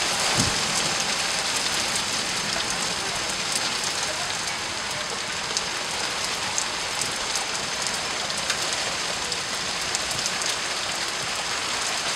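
Steady rain falling in a thunderstorm: an even hiss with scattered ticks of drops.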